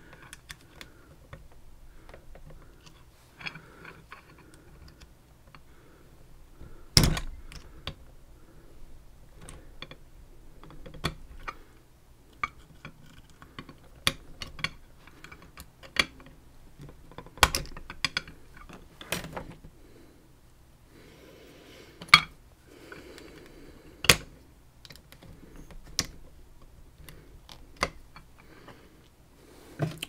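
Scattered light metallic clicks and taps of small hand tools working on a Banham lock cylinder, prying at the little retaining clips on its back. A few sharper knocks stand out, the loudest about seven seconds in.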